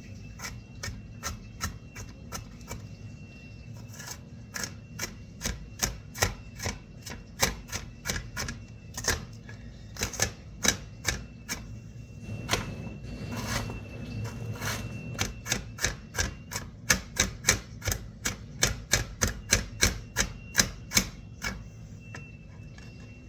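Knife chopping on a cutting board, quick strokes about two to three a second with a few short pauses.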